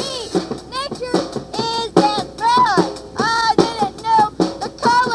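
A song playing: a high, bending sung vocal line over a drum kit and bass.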